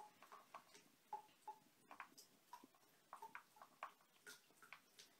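A cat eating from a plastic food bowl: faint, irregular clicks and crunches as it chews, a few a second.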